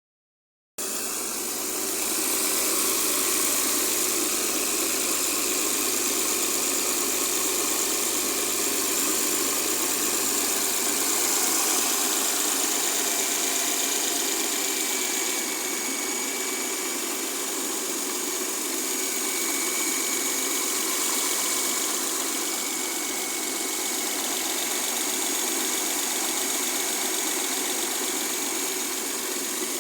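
Mercedes-Benz W212's M272 petrol V6 engine idling steadily, with a clacking noise whose source the owner is trying to trace.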